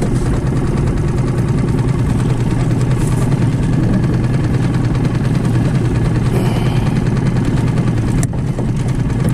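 Outboard motor running steadily at trolling speed, with a single brief knock near the end.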